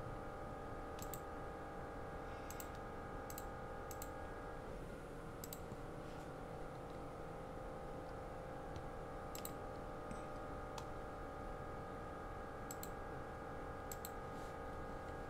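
Computer mouse clicking, about a dozen single clicks at irregular intervals, as edges are picked one by one for a fillet in CAD software. A steady, faint multi-tone hum runs underneath.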